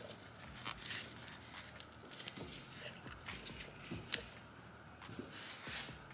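Disposable-gloved hands handling and working a rubber hose onto an oil catch can: irregular rustling, scraping and small clicks, with one sharp click about four seconds in.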